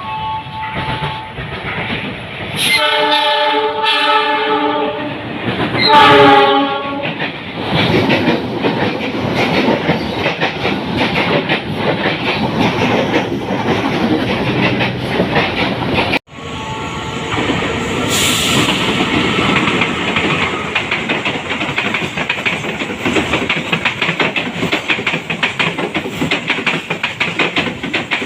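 A passing train sounds its horn twice, a long blast and then a shorter, louder one. Its wheels then clatter rhythmically over the rail joints. An abrupt cut about halfway through leads to another train passing with the same wheel clatter.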